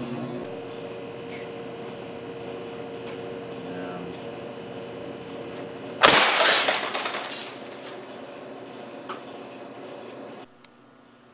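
Homemade compressed-air cannon at 300 psi firing a 25 mm barrel load of rock salt: one sudden, very loud blast about six seconds in, followed by a clattering spray of salt grains hitting the cardboard target and scattering across the concrete floor, dying away over a second or so.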